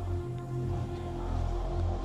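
Background music: a low, steady droning pad.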